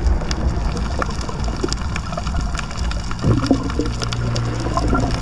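Underwater reef sound: a steady low rumble of moving water with many scattered crackling clicks, and a short low hum about three seconds in.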